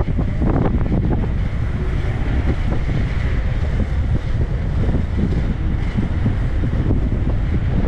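Heavy wind buffeting on the microphone of an inline skater racing at speed, a steady low rumble, with the rolling of skate wheels on asphalt underneath.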